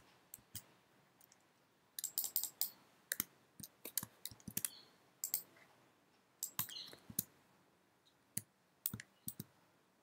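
Computer keyboard typing and mouse clicks, in short irregular bursts of keystrokes with pauses between them.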